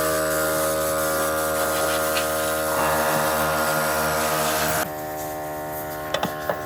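A machine or power tool running steadily with a hiss over it, which cuts off abruptly about five seconds in, leaving a lower steady hum and a few sharp clicks near the end.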